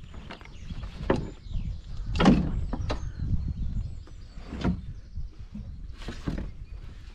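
A canvas backpack is handled and set down in a canoe on a wooden jetty: a series of knocks, scrapes and rustles, the loudest a thump a little over two seconds in.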